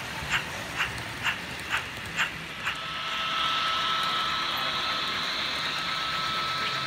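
Märklin H0 model train running behind a class 75 steam tank locomotive. It gives a regular click about twice a second, then from about three seconds in a steady high whine with a hiss over it.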